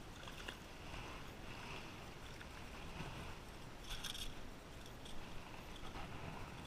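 Wind rumbling on the microphone with faint water lapping at the shore rocks, and a short burst of hiss about four seconds in.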